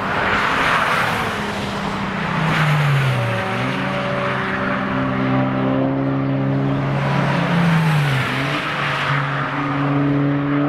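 Volkswagen Golf 5 GTI's turbocharged 2.0-litre four-cylinder running hard as the car passes on a race track, with tyre and wind rush. The engine note glides down twice, about three and a half and eight seconds in.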